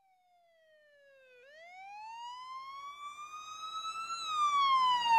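A single siren-like wailing tone fades in from silence. It slides down, then rises slowly for about three seconds and falls again, growing louder. It opens a song track just before the drums come in.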